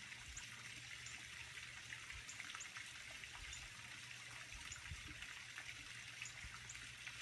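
Faint outdoor ambience: a steady trickling, water-like hiss with short high chirps repeating about every half second to a second, over a low steady hum.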